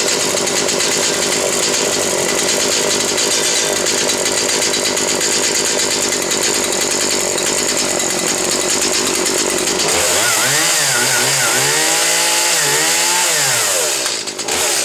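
Stihl MS 170 chainsaw's small two-stroke engine running steadily. About ten seconds in it is revved up and down several times with the throttle, and once more near the end.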